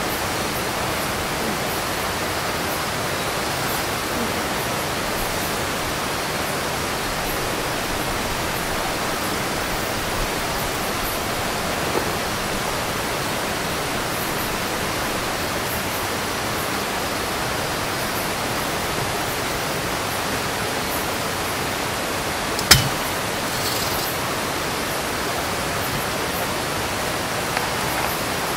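Steady rushing of a river, an even loud wash of water noise. A single sharp click stands out near the end, with a couple of fainter ticks, as a folding camping cot's frame is handled.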